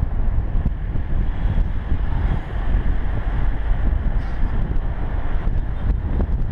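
Wind buffeting the microphone at the open window of a moving car, a heavy, uneven rumble over steady road noise.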